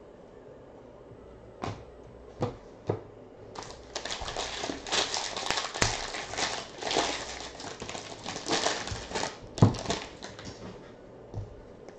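A foil trading-card pack wrapper being torn open and crinkled by hand, a dense crackle lasting several seconds with one sharp snap near the end. It follows a few light knocks of cards being handled.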